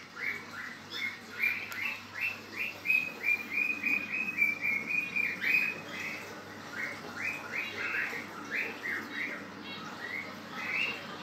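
Small pet-shop birds chirping steadily, a quick run of short high chirps, several a second, densest and loudest midway, over a faint low steady hum.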